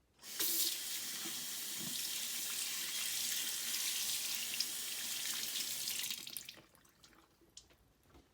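Water running from a tap into a sink: a steady rushing that starts just after the beginning and stops about six seconds later.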